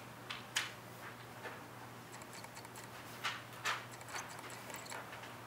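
Footsteps and paper handouts rustling as they are passed out, with a few sharp taps, over a low steady hum.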